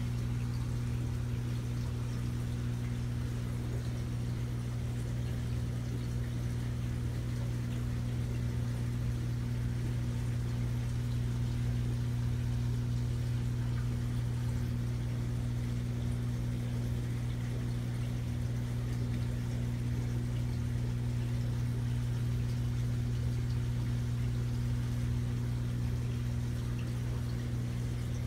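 Aquarium pump running with a steady low mains hum, over a constant light wash of moving water.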